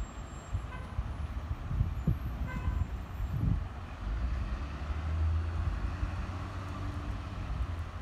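Distant International DT466E diesel engine of a Blue Bird school bus running, a low rumble that swells about halfway through. Gusts of wind buffet the microphone.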